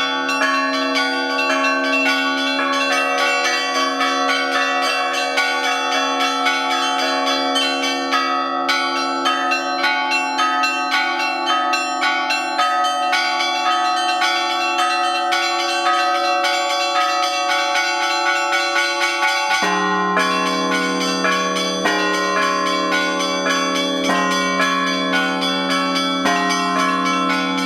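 Russian Orthodox church bells rung all together in a full peal: quick, rhythmic strikes of the small bells over the lingering hum of larger bells. About two-thirds of the way through, the pattern of the lower bells changes.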